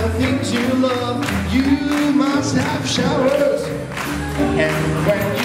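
Live swing band music with singing, carried by double bass and guitar.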